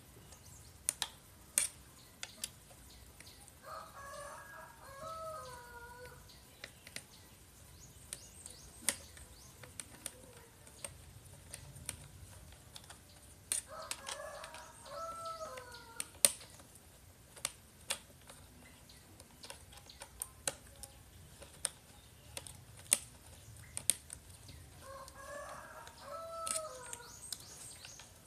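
A rooster crows three times, about ten seconds apart. Sharp clicks and taps, the loudest sounds, come from hand tools working on a chainsaw's plastic recoil starter housing.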